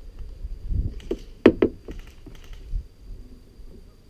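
Handling noise: a few light clicks and knocks, the two sharpest close together about a second and a half in, over a low rumble.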